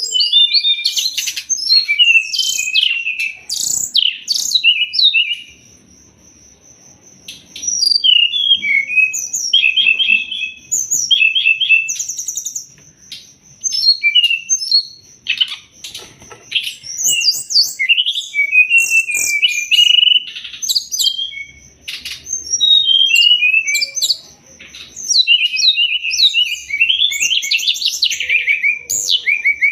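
Brown-chested jungle flycatcher (sikatan rimba dada coklat) singing: rapid, varied high chirps and trills in phrases broken by short pauses.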